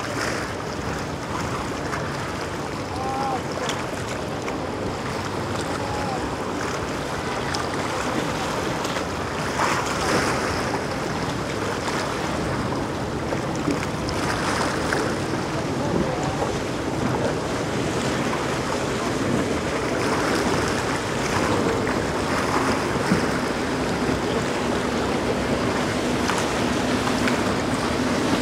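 Surf washing against the rock jetty and wind on the microphone, under the running of outboard motors on boats in the inlet. A steady low engine hum grows clearer over the last few seconds.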